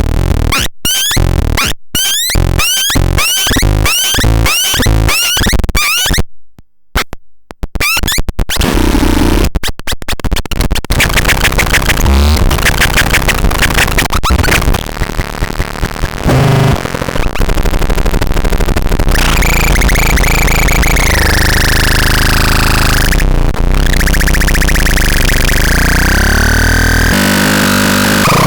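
Synthesized electronic sound effects from the CBX 6013D start-up sound demo: about two rising chirps a second for the first six seconds, a brief cut-out, then rapid stuttering clicks giving way to a dense, noisy wash of synthesized tones with slow pitch glides.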